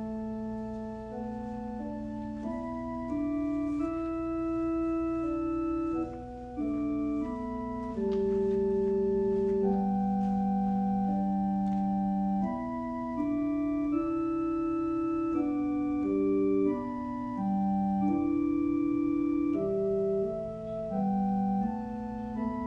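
Organ playing slow chords of held notes that change step by step.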